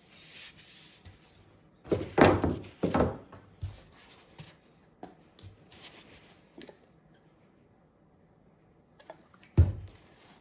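Workbench handling noises as a brass butt cap is fitted and glued onto a wooden handle: a brief hiss at the start, two loud scraping rubs about two and three seconds in, scattered light clicks, and one sharp knock near the end.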